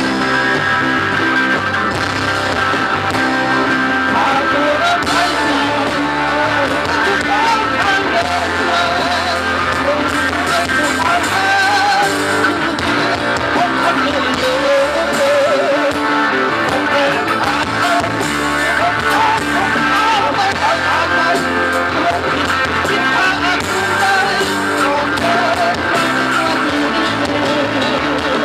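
A live band playing a song, guitar-led with a wavering melody line over it.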